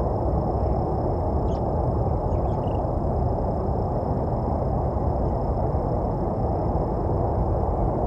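Steady low rumbling outdoor background noise. A few faint high chirps come about one and a half to three seconds in.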